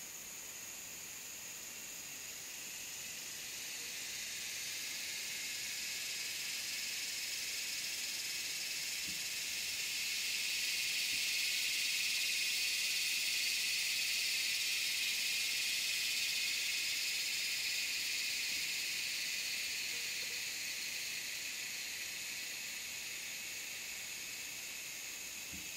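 Tropical forest insect chorus: a steady, high-pitched drone that swells to its loudest about halfway through and then slowly fades.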